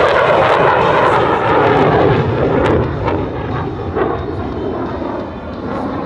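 F-16 fighter jet's engine noise from overhead, a loud dense roar that eases off a little about three seconds in.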